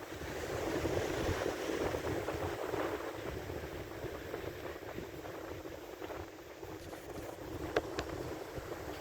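Wind buffeting the microphone, with ocean surf washing behind it. Two short clicks near the end.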